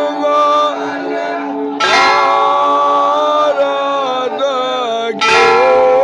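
Devotional aarti music: a voice singing over a ringing bell that is struck twice, about three and a half seconds apart, each strike ringing on under the singing.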